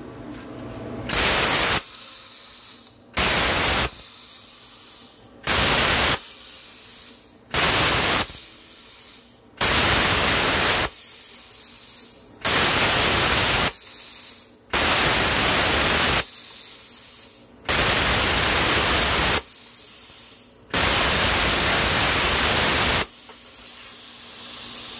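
A CUT50L air plasma cutter, running at 30 amps with a Hypertherm-style torch, fires its arc about nine times through 1 mm steel plate. Each cut is a loud hiss that starts and stops sharply and lasts from half a second to two seconds. A lower steady hiss of air runs between the cuts.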